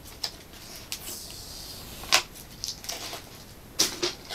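Plastic toy pieces and packaging being handled, giving a few light clicks and taps, with sharper knocks about two seconds and about four seconds in.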